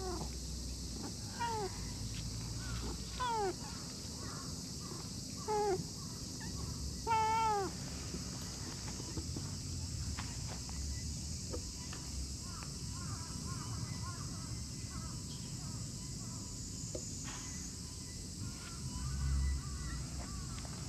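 A cat meowing several times over the first eight seconds, each meow falling in pitch, the last the loudest. Faint chirps follow.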